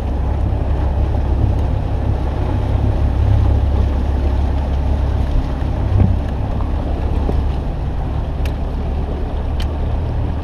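Bass boat's outboard motor running low and steady as the boat moves slowly, with wind buffeting the microphone. A single knock about six seconds in.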